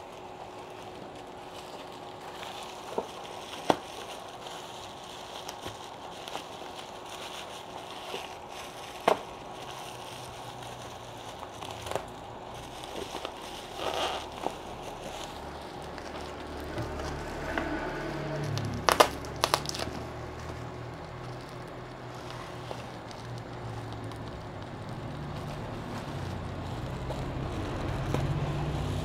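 Plastic parcel wrapping and bubble wrap crinkling and crackling as they are handled and pulled open, with a scattered run of sharp clicks and snaps, the loudest about two-thirds of the way in. A low rumble builds in the second half.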